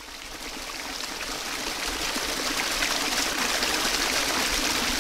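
Steady rushing noise of running water, like a stream, fading in over the first second or so and then holding even.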